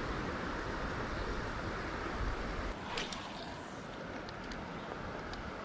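Steady rush of flowing river water with some wind. About three seconds in, a sharp click and a brief falling whizz from a spinning-reel cast, followed by a few light clicks from the reel.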